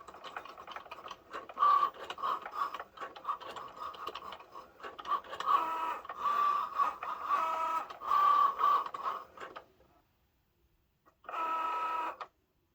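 Cricut Joy cutting machine running, its small motors whirring in shifting, pulsing tones as it moves the blade and mat. It stops about ten seconds in, then runs again briefly for about a second near the end.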